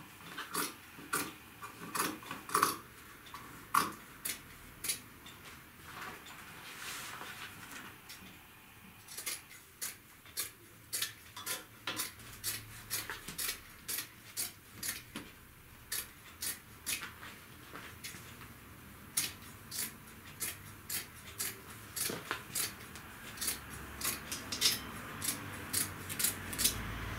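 Scissors snipping through heavy jute hessian, a crisp snip every second or so in runs, with a few short pauses between them.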